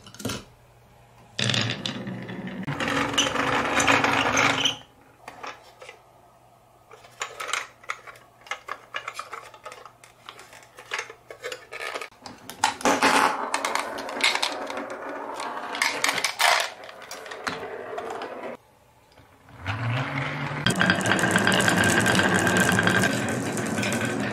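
Marbles pouring out of a toy truck and rolling down a wooden track with wavy grooves, clattering against the wood and each other. Three long rushes of rolling clatter, with scattered single clicks between them.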